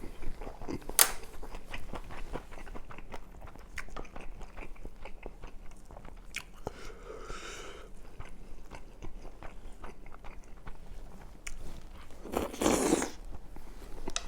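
Close-miked eating sounds: wet chewing and mouth clicks of someone eating steamed pork kimchi. A louder rush of noise about a second long comes near the end.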